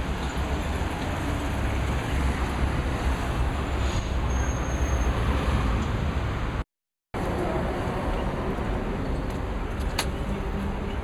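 Street traffic noise from passing cars, a steady city-street rumble. The sound cuts out completely for about half a second about two-thirds of the way through, then the traffic noise resumes.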